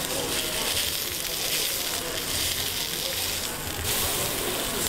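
Duck-meat burger patty sizzling steadily in hot oil in a frying pan as it is turned over with a metal spatula.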